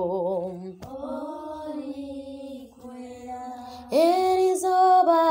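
A woman singing a slow hymn solo, with no accompaniment. A long held note with vibrato ends about a second in, softer phrases follow, and a loud high note begins about four seconds in.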